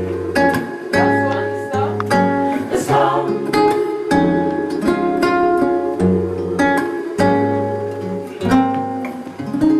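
Instrumental accompaniment playing rhythmic chords over a moving bass line, each chord struck afresh about twice a second.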